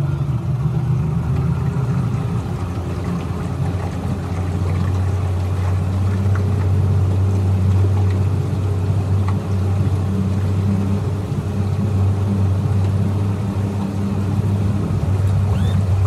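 Tiller-steered outboard motor on a small aluminium boat running at low speed, a steady low hum that grows a little louder about five seconds in as the boat picks up a little speed.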